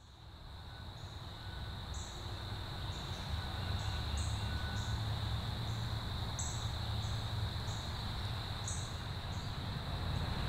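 Insects calling: a steady, high trill with short, higher chirps repeating every half second to a second, over a low rumble. The sound fades in at the start.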